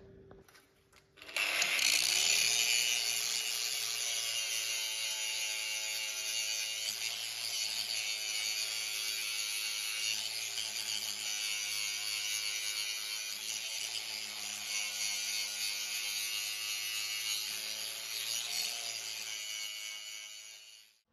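Angle grinder spins up about a second in and grinds steadily on steel, a steady motor whine under a strong high grinding hiss, then winds down near the end. It is grinding the proud weld flush around a freshly bored 70 mm hole.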